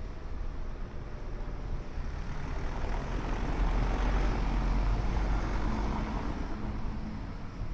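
A car passing slowly over cobblestones, its tyre and engine noise swelling to a peak about halfway through and then fading.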